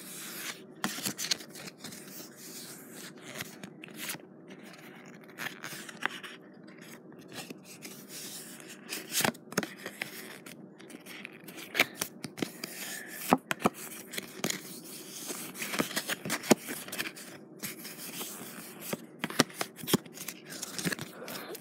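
Paper playing cards handled close to the microphone: irregular snaps, clicks and scraping as the cards are moved and rubbed.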